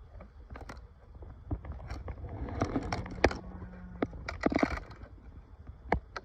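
The top of a bee package being prised off: irregular scraping, creaking and sharp knocks and clicks, the sharpest about three seconds in.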